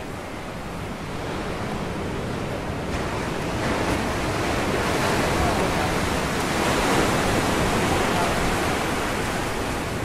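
Ocean surf breaking on a rocky shoreline, a steady wash of water that swells about three seconds in as a wave rushes in, then eases slightly near the end.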